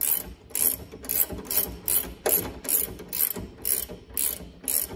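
Hand ratchet wrench clicking in quick, even strokes, about four a second, as it tightens the bottom mounting bolt of a rear coilover.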